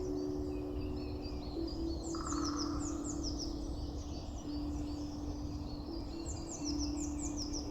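Recorded songbird song: several bursts of quick, high, descending chirps repeated in series, over a low background rumble, with soft held low notes underneath.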